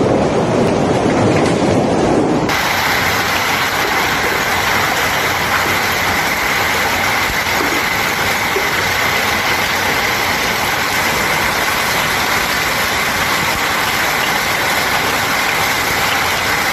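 Heavy hailstorm: a low, rough roar of wind-driven hail at first, then, after a cut about two seconds in, a dense, even hiss of hailstones pelting the ground and the water of a swimming pool.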